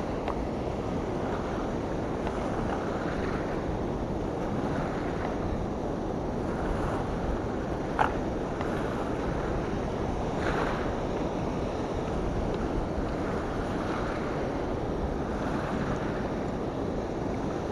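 Steady rush of turbulent water released below a dam, churning past the bank, with some wind on the microphone. A single sharp click about eight seconds in.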